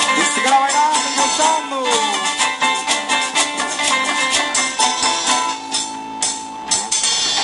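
Live cumbia band playing: quick, steady percussion with a scraped, rattling rhythm under a melody that slides between notes in the first two seconds, then settles on a held note.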